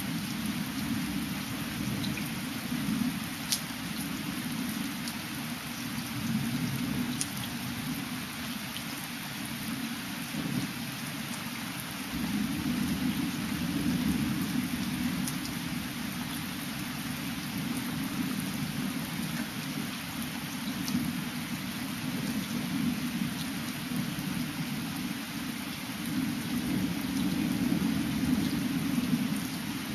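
Thunderstorm: steady rain with scattered drop ticks, over a low rumble of distant thunder that swells and eases.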